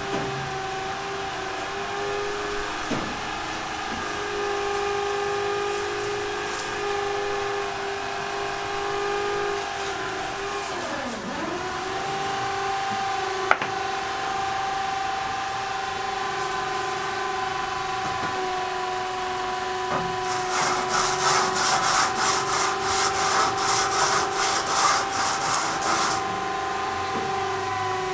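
A machine hums steadily, its pitch dipping and recovering briefly partway through. Near the end comes a run of quick rasping strokes, several a second, like sawing or scraping.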